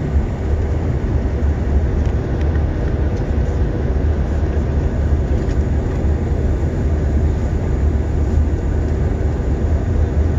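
Steady drone of an airliner's engines and rushing air, heard from inside the passenger cabin on the descent to land. It is deepest and strongest at the low end, with a faint steady hum laid over it.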